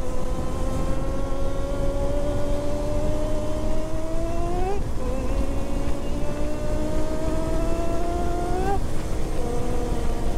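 Inline-four motorcycle engine pulling hard through the gears: its pitch climbs steadily for about four and a half seconds, drops at an upshift, climbs again and drops at a second upshift about nine seconds in, over steady road and wind noise.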